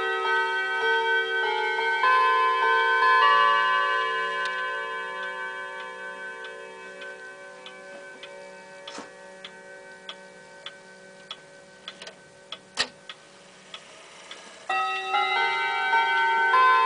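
Jawaco Lourdes pendulum wall clock playing its chime melody. The notes ring on and slowly die away, leaving the steady tick of the movement. About three quarters through there is one sharp click, and near the end a new run of chime notes begins.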